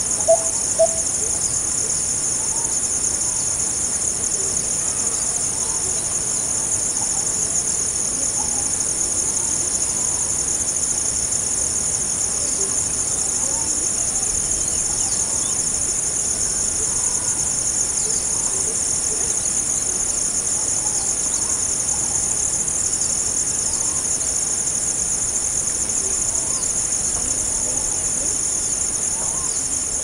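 Rainforest ambience dominated by close insect stridulation: a dense, steady, high-pitched buzz that never lets up. Faint bird calls sound in the background, and a few short low calls come just after the start.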